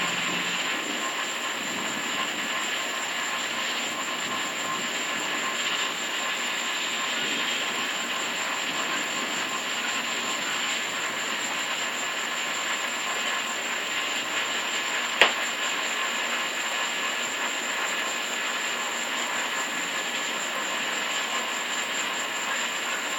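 Steady hiss of heavy rain during a thunderstorm, with one sharp click about fifteen seconds in.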